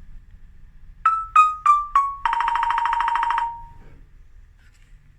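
Cartoon musical sound effect: four quick plucked notes, each a step lower in pitch than the last, then one held note with a fast tremolo that fades away.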